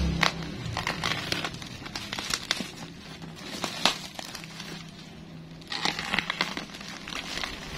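Plastic wrapping and packing tape on a parcel crinkling and crackling as it is handled and slit with a box cutter, with scattered sharp crackles. The sound drops off for a moment past the middle, then the crinkling starts up again.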